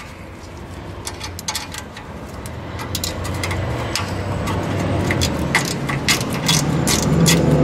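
Small metallic clicks and taps of a worm-drive hose clamp being fitted around a loose exhaust heat shield and turned with a hand nut driver. Behind them runs a low steady hum that grows louder from about three seconds in.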